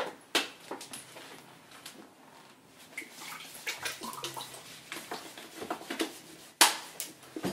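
Light knocks, clicks and rustles of things being handled at an open refrigerator, with one sharp, louder knock near the end.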